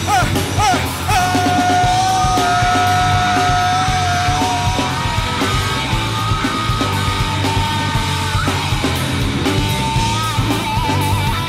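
Live rock band playing an instrumental passage with electric guitar, bass and drums, with long held high notes over the band.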